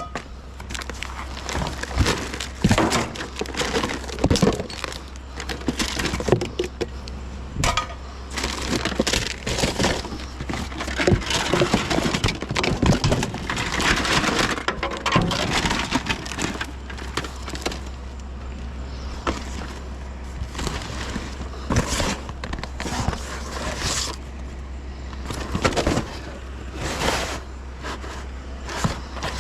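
Junk being rummaged through and handled: a long run of irregular clattering, knocks and rattles as objects are picked up, moved and dropped, over a steady low hum.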